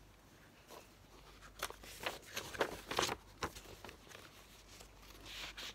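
Sheet of paper being handled and turned over, with a run of short crisp crackles and taps around the middle and a soft rustle near the end.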